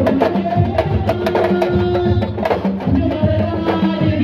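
Sabar drums played fast and densely, with long held notes sounding over the drumming.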